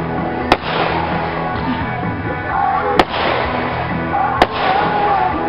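Three sharp fireworks bangs over music playing throughout: one about half a second in, one about three seconds in and one near the end.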